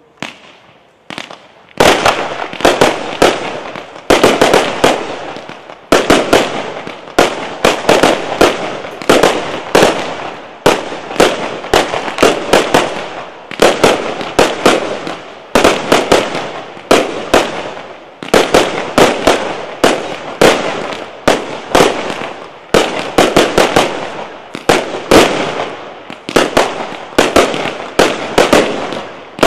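Aerial firework shells bursting in rapid volleys of loud bangs, often several a second. After a couple of small pops, the barrage starts about two seconds in and keeps going.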